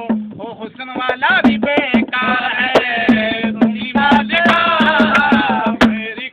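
A man sings a Punjabi folk song in long, wavering held notes without clear words. A hand drum keeps a steady beat under the voice.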